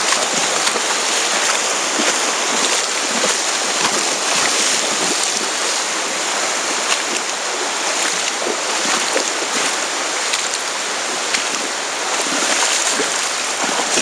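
Fast, shallow river water rushing over rapids: a loud, steady wash, with small splashes here and there.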